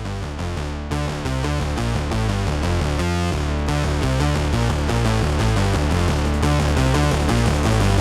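Electronic background music with a synthesizer, a busy pattern of short notes over a steady bass line.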